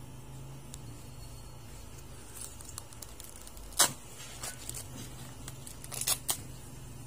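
Corn husks being torn and peeled off an ear of corn by hand: a few crisp tearing rustles, the sharpest about halfway through and a quick pair near the end, over a low steady hum.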